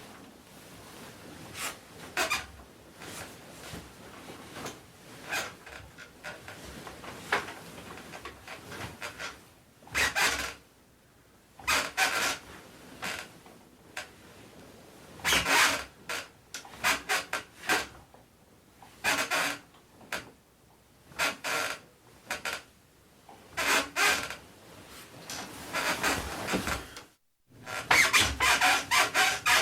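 Squeaky spring mattress on a wooden bed frame creaking as weight shifts and bounces on it, in irregular bursts with short pauses between. Near the end, after a brief break, the creaks come fast and louder in a quick run, as from bouncing.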